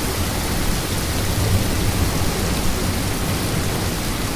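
Heavy thunderstorm rain pouring, a steady even hiss.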